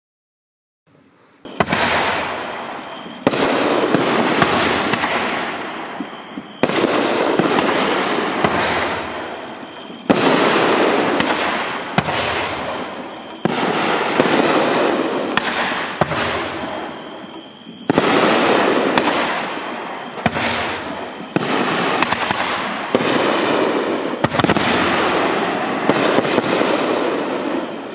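Nishiki (brocade) aerial shells from a consumer firework rack bursting one after another, about a dozen reports a second or two apart, starting about a second and a half in. Each sharp bang is followed by a hiss that fades away before the next shot.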